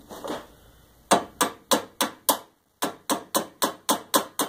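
A small hammer tapping the end of a caster wheel pin on a cast iron treadle sewing machine base, with a heavier hammer held against the other end as a backstop. About a dozen quick, sharp metal-on-metal taps, three to four a second, start about a second in, with a brief pause halfway. The taps peen a burr onto the pin end to lock the pin in place.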